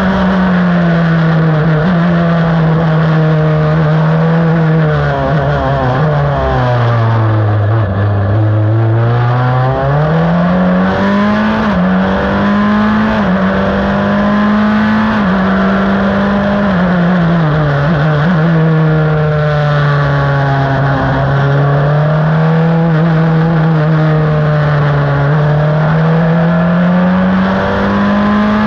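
Onboard sound of a Crawford FL-15 open-wheel race car's engine at speed on track. The engine note falls to its lowest about eight seconds in as the car slows, climbs again with a couple of quick steps as the gears change, dips once more around twenty seconds in and rises toward the end.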